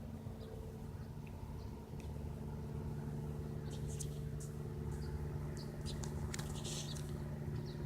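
Single-engine Cessna's piston engine and propeller droning steadily as it flies low overhead, growing a little louder about two seconds in.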